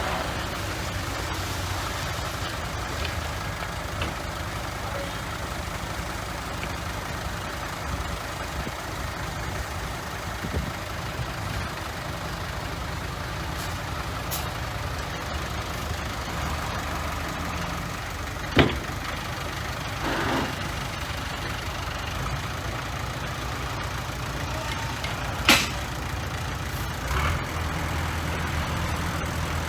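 Heavy diesel construction machinery running steadily with a low rumble, with two sharp clanks, one in the middle of the stretch and one towards the end.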